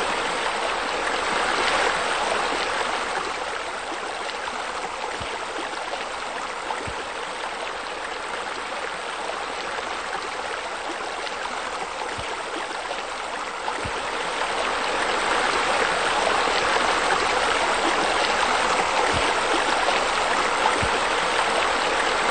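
Steady running, splashing water, like a small rock waterfall spilling into a pool, growing louder from about fourteen seconds in.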